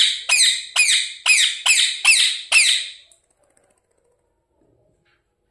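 Pet parrot giving a run of about seven short, shrill calls, each sliding down in pitch, about two a second; the calls stop about three seconds in.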